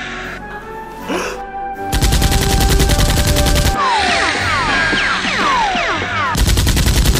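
Two bursts of rapid automatic gunfire, film sound effects laid over blaster action, with a string of short falling whistles between them. Music plays underneath.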